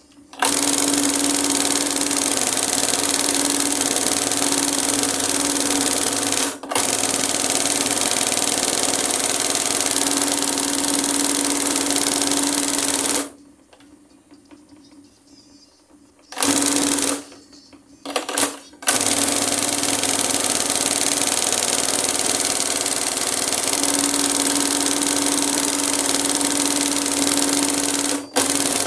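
Industrial embroidery machine stitching at speed with a steady hum, guided by hand. It runs in long spells, stops for about three seconds around the middle, restarts in two short spurts, then runs on.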